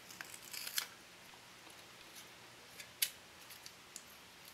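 Aluminum foil tape crinkling and crackling as it is wrapped around a filter capacitor can, with scattered sharp clicks, a cluster near the start and the loudest about three seconds in.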